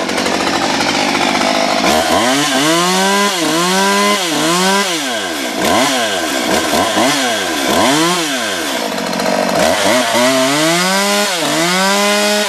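Stihl MS 192 TC top-handle chainsaw's two-stroke engine running just after a warm start on a test run. It is revved up and down again and again in short throttle blips, then held at higher revs near the end.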